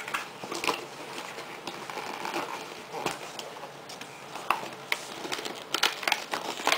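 Handling noise: irregular clicks and knocks with rustling, as things are moved about on a bed.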